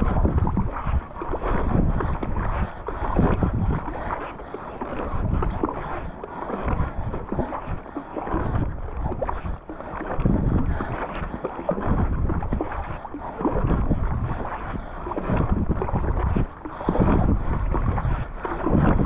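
Fast kayak strokes with a Werner Cyprus paddle, the blades splashing and pulling through the water one after another, with wind buffeting the microphone.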